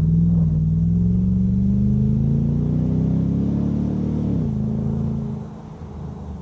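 Nissan Patrol Y62's V8 exhaust, fitted with a replacement muffler, accelerating away under load. The engine note rises steadily for about four seconds, drops sharply, and then grows quieter as the vehicle moves off.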